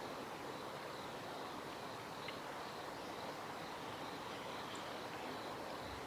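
Steady outdoor background noise, a low even hiss and rumble. Over it runs a faint high ticking tone about three times a second, and one short chirp comes about two seconds in.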